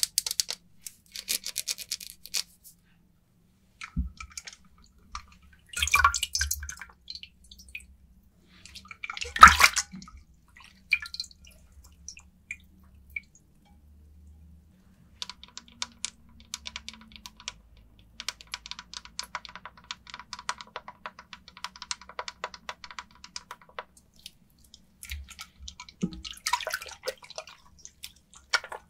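A bar of soap handled with water: scattered taps and knocks, the loudest about ten seconds in, then a long stretch of fine, crackly rubbing from about fifteen seconds in.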